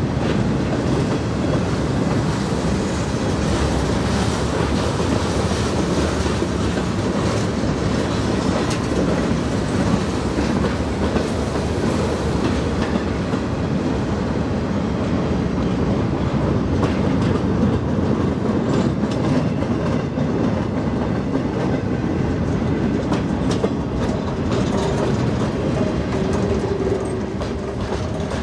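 Freight cars of a train rolling past, a steady rumble of steel wheels on rail with light clicking over the rail joints.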